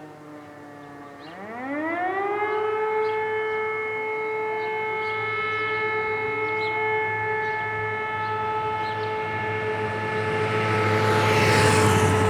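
Fire-brigade alarm siren winding back up about a second in, its pitch rising quickly and then holding a steady tone. This is the renewed tone of the interrupted alert signal that calls out the volunteer firefighters. Near the end a rush of noise rises over it.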